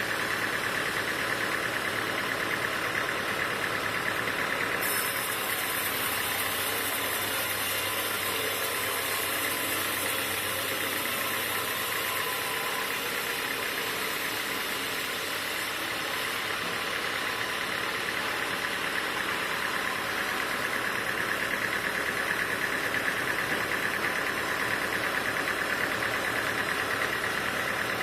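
Sawmill machinery running steadily, a constant mechanical drone. A high hiss comes in about five seconds in and stops about eleven seconds later.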